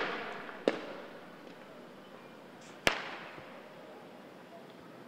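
Two sharp bangs of tear gas canisters being fired from a riot police vehicle, about two seconds apart, the second trailing off in an echo along the street.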